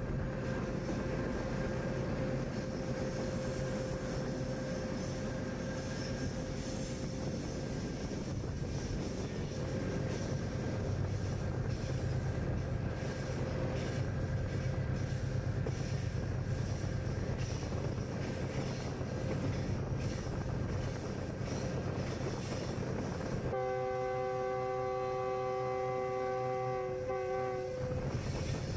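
General Electric diesel-electric locomotive running steadily with its train moving on the rails, then a long horn blast of several steady tones sounding together for about four and a half seconds near the end, cutting off suddenly.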